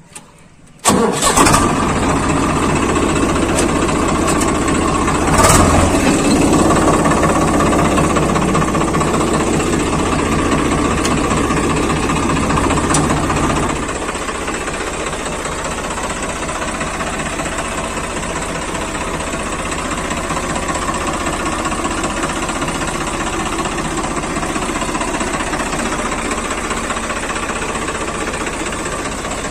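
Swaraj 855 FE tractor's three-cylinder diesel engine starting up about a second in and running, with a brief louder burst about five seconds in. It then runs more quietly and steadily at idle from about fourteen seconds in.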